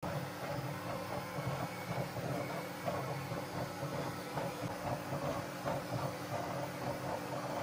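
Bambu Lab P1S 3D printer running: a steady fan hum, with the stepper motors whining in short tones that rise and fall several times a second as the print head moves.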